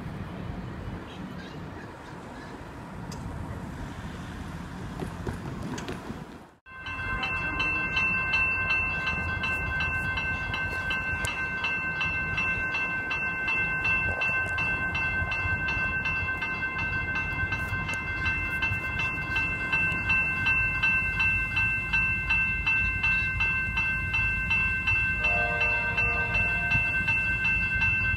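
Level crossing electronic bells (General Signals E-bells) ringing steadily and shrilly as the crossing activates for an approaching electric suburban train, with a short train horn near the end. Before that come a few seconds of outdoor rumble, which stop suddenly at a cut.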